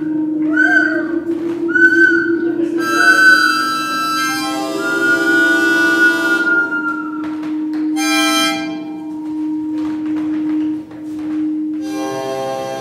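Acoustic feedback from condenser microphones aimed at active loudspeakers in a no-input setup. A steady low drone runs under short whistling tones that swell and fade about once a second. Buzzier tones with many layers come in about three seconds in, again around eight seconds, and near the end.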